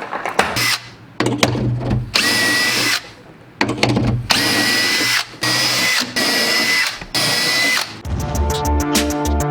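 A power drill boring a row of shelf-pin holes through a Kreg shelf pin jig, with a bit stopped by a stop collar. The drill runs in short bursts of under a second each, one after another. Music with a beat comes in near the end.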